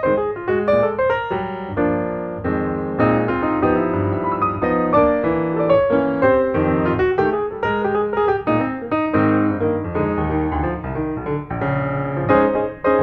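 Background piano music, a steady stream of notes with no other sound above it.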